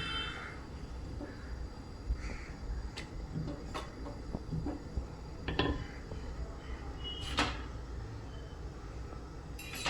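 Kitchen utensils and cookware knocking and clinking: several short, sharp knocks spread through, over a steady low hum.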